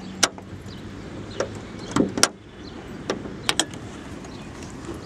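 Scattered sharp clicks and knocks from handling around a car's bonnet, over a steady low hum.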